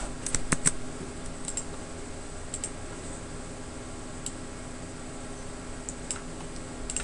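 Scattered clicks of a computer mouse and keyboard: a quick cluster in the first second, then single clicks every second or two, over a steady faint hum.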